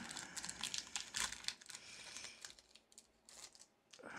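Foil wrapper of a Pokémon card booster pack crinkling and tearing as it is opened, busiest in the first two seconds, then a few light clicks of the cards being handled.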